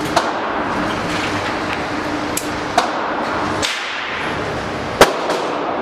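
Gunshots at an indoor shooting range: a few sharp cracks at uneven intervals, the loudest about five seconds in, over steady background noise.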